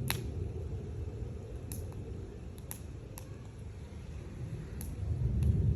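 Campfire crackling: sharp, irregular pops and snaps over a steady low rumble that swells near the end.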